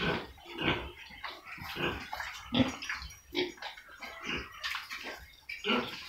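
Pigs nosing and slurping at a shallow puddle of muddy water on a concrete floor: an irregular run of short wet, splashy sounds, with a few grunts mixed in.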